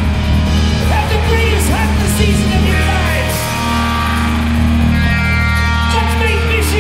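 Live hard-rock band playing: a distorted electric guitar holds long notes and bends them up and down over a steady bass and a full drum kit with repeated cymbal crashes.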